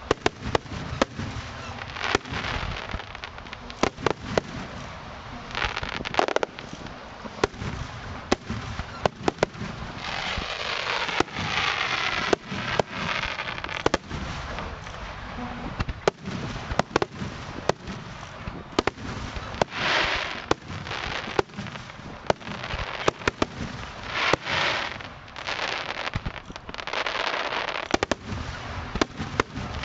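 Aerial firework shells bursting in rapid, irregular succession: many sharp bangs, with stretches of dense crackling from crackle-effect stars.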